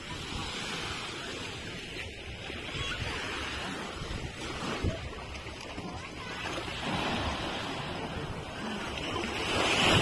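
Small waves lapping and breaking on a sandy shore, a steady wash of surf that swells louder near the end.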